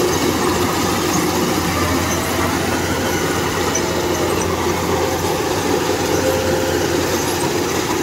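Rice combine harvester running steadily as it drives into standing rice, a constant engine drone with a few steady tones in it.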